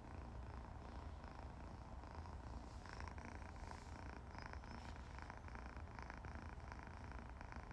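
A domestic cat purring steadily, a low continuous rumble.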